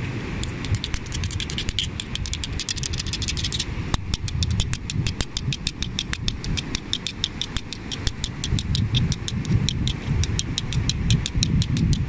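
Small ribbed seashell rasped and clicked in the fingers, giving a fast, even train of clicks about ten a second, with a short break about four seconds in. Under it, wind rumbles unevenly on the microphone.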